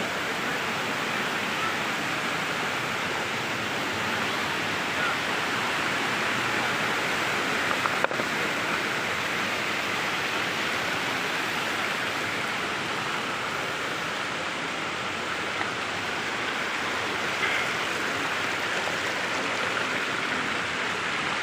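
Waterfall rushing as a steady, even roar. There is one sharp click about eight seconds in.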